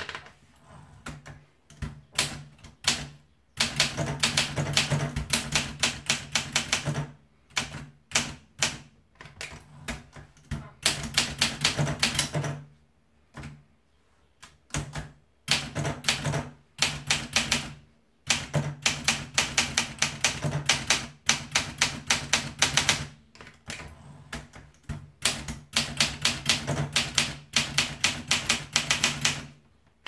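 Olympia SM9 manual portable typewriter being typed on: quick runs of key strikes, the typebars clacking against the platen, broken by short pauses.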